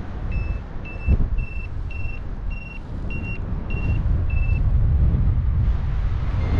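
Paragliding variometer giving its climb tone: about eight short beeps roughly twice a second, pitch edging up then dropping, signalling rising air, stopping about four and a half seconds in. Under it a steady rumble of wind on the microphone, louder near the end.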